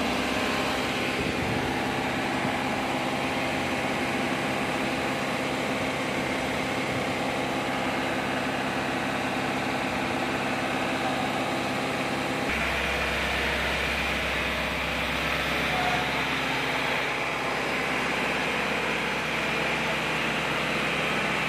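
Tata LPT 1109 truck's 3.3-litre diesel engine idling steadily while a DPF idle regeneration is run from diagnostic software. About twelve seconds in, the sound changes: a deeper hum and a louder hiss come in.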